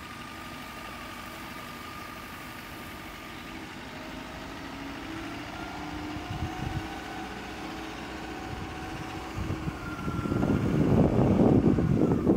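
A small water-tanker truck's engine running steadily, a steady hum under the open-air background. About ten seconds in, wind buffeting the microphone grows loud and gusty and covers it.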